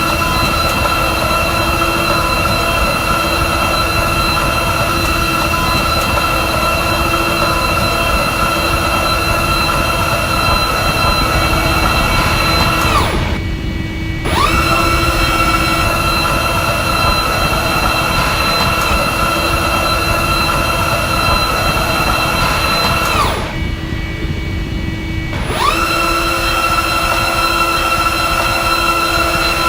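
CNC machining centre milling aluminium at high speed: a loud, steady high-pitched spindle and cutting whine over a low hum. Twice the whine falls in pitch and drops out for a second or two between cuts, then rises back up.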